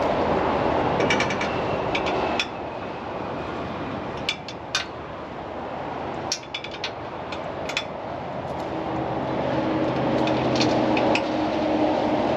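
Scattered sharp metallic clinks and taps of hardware and hand tools against a steel equipment rack, in small clusters of a few strikes each, over a steady background noise that drops a little over two seconds in and swells again later, with a low hum joining near the end.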